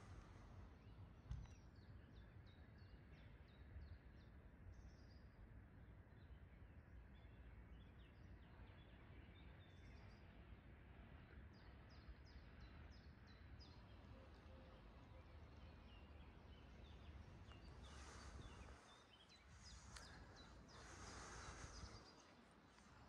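Faint birds chirping in quick runs of short high notes over a low, steady background rumble.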